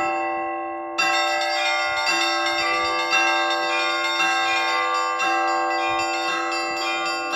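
Church bells in a bell tower rung together, several bells of different pitch sounding at once. After a short lull, a strike about a second in starts a run of strikes roughly once a second, each ringing on and overlapping the last.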